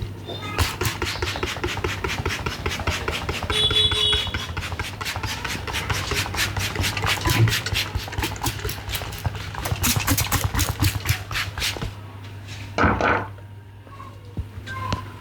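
Percussive hand massage: rapid slapping and chopping strokes of the hands, several a second, keep up for about eleven seconds and then stop. A short, louder burst of noise follows near the end, over a steady low hum.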